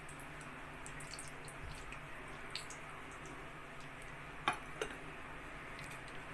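Cooking oil poured in a thin stream into an aluminium pressure cooker on an induction hob, then a steady faint hiss as it sits in the pan, with two short sharp clicks about four and a half seconds in.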